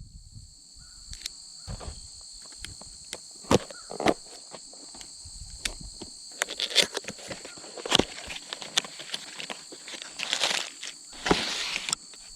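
Packaging of a tenkara rod being handled and opened: irregular clicks, taps and knocks, with a burst of rustling near the end. A steady high insect trill, like crickets, runs underneath.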